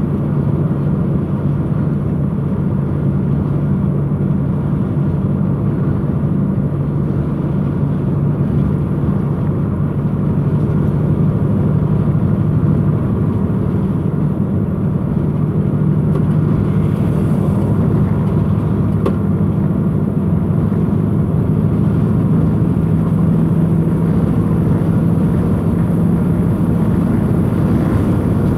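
Steady drone of a lorry's engine and tyres on the road at a constant cruising speed, an unchanging low hum over a rumble of road noise.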